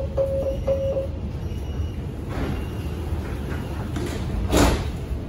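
Metro train door-closing warning: a rapid series of beeps at one pitch in the first second, then the sliding doors close, with a loud thump about four and a half seconds in, over the low rumble of the train.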